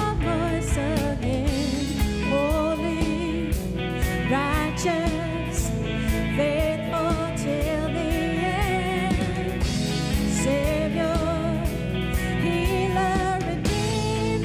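A woman singing lead on a worship song, with a live band playing behind her.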